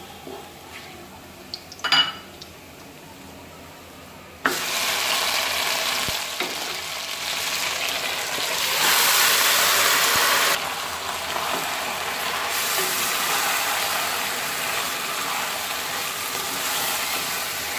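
Soft frying in a karahi of oil, a sharp metallic clink about two seconds in, then a sudden loud sizzle as spice-marinated beef is tipped into the hot oil. The beef keeps sizzling while it is stirred with a wooden spatula.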